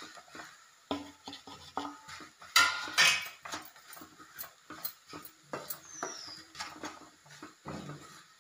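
Wooden spatula stirring a crumbly mix of jaggery and grated coconut in a non-stick pan, with irregular knocks and scrapes against the pan and one louder scrape about two and a half seconds in.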